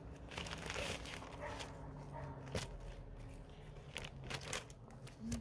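A bag crinkling and rustling as it is handled and opened, with irregular crackles and one sharp click about two and a half seconds in.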